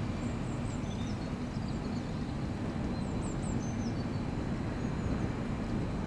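Steady low background noise from Stroud Brewery's plant, with a few faint high bird chirps over it.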